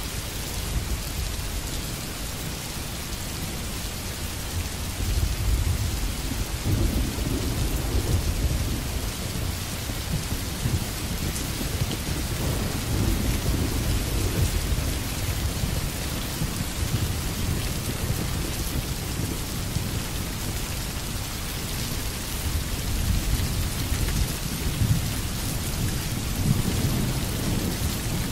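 Steady hiss of rain with a low rolling rumble of thunder.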